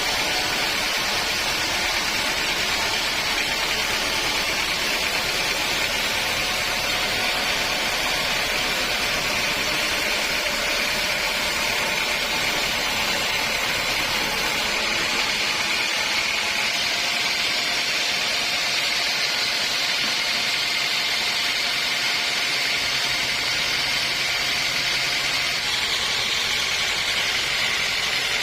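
Sawmill machinery running steadily: a constant mechanical hum with a high whine, and less low rumble from about halfway through.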